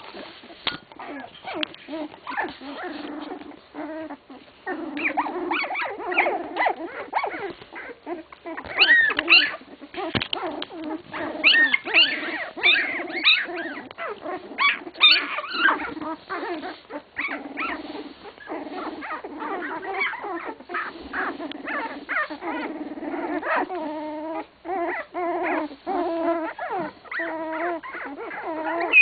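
A litter of 16-day-old English Cocker Spaniel puppies whimpering and squeaking, with many short, overlapping, wavering calls. The calls come thickest and loudest in the middle stretch.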